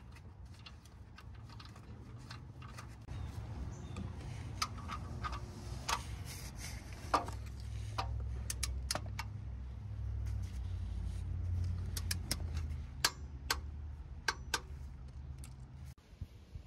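Irregular metallic clicks and clinks of a 1/2-inch socket wrench on a car's oil drain plug as it is threaded back in and tightened, over a low steady rumble that stops near the end.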